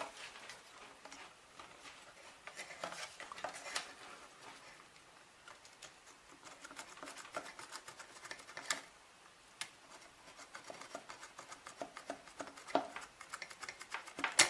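Faint, scattered clicks and scratches of a small circuit board and its plastic connector being handled and scraped clean of coating or flux.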